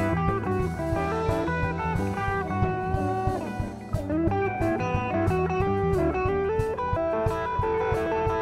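Live electric blues band playing an instrumental passage: electric guitars, bass guitar and drum kit, with a harmonica played over them.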